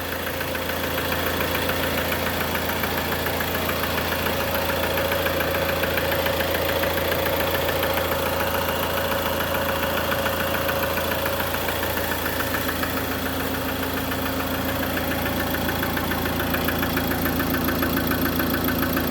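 Ford Transit 2.2 TDCi diesel engine idling, with a fast repetitive knock or click running through it. The owner hears the knock from low down, near the gearbox and starter, and cannot find its cause.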